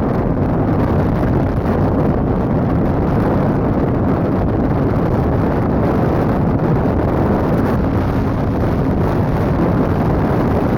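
A vehicle's engine running steadily while under way, with wind buffeting the microphone.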